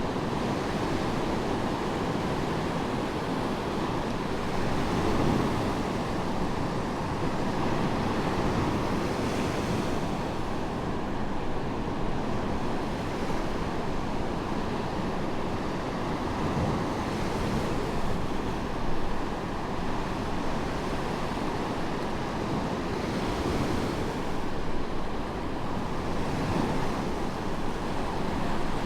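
Medium waves breaking on a sandy beach, a continuous rush of surf that swells and eases every few seconds as each wave falls and washes up the sand, with some wind.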